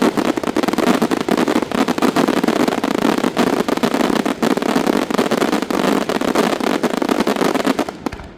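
Fireworks barrage: a dense, continuous crackle of rapid small bangs and pops, typical of a finale, that cuts off suddenly near the end.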